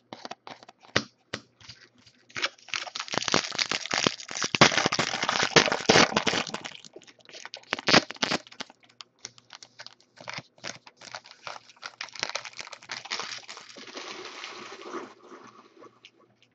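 Foil wrapper of a Panini Momentum football card pack crinkling as it is torn open and handled, with quick clicks of trading cards being flicked and shuffled.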